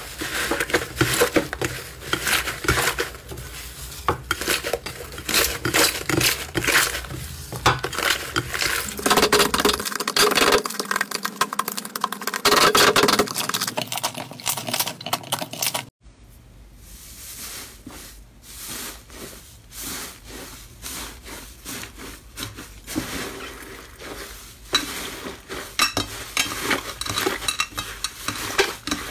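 Fluffy slime being kneaded, squeezed and pulled apart by hand, making dense crackling and sticky popping. The sound is louder and busier in the first half. It changes abruptly about halfway through to a quieter, softer crackle as another batch is worked.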